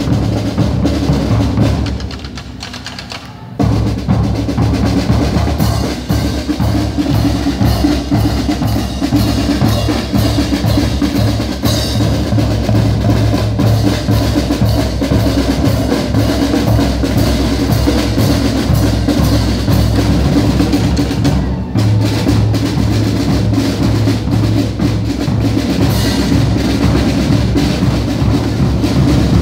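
Parade marching band's drum line playing a cadence on snare and bass drums. The drumming drops off about two seconds in and comes back loud a second and a half later.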